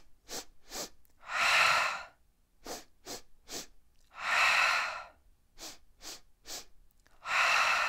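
A woman's breathing exercise: three quick sniffing inhales through the nose, then one long exhale through the mouth, done three times in a row. It is an energising breath technique.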